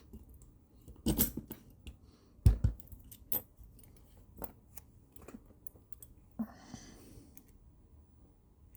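Scattered sharp metallic clicks and taps of a steel lock pick being handled and tried in a lock. A short rustle comes about six and a half seconds in.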